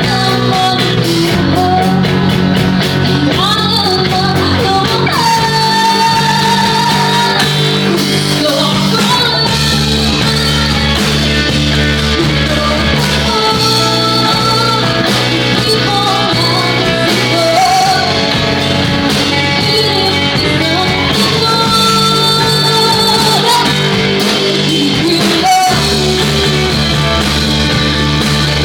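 Live rock band playing: a woman singing over electric guitar, bass and drums.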